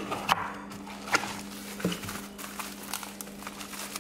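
A small cardboard box being opened and a bubble-wrapped part lifted out: scattered taps, rustles and crinkles of cardboard and bubble wrap on a wooden bench, over a steady low hum.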